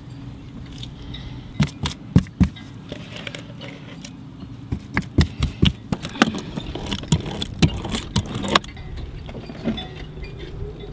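Sharp, irregular clicks and knocks of tools working wet epoxy into fiberglass cloth over the deck core with a brush and roller, over a low steady hum. The clicks are thickest through the middle and thin out near the end.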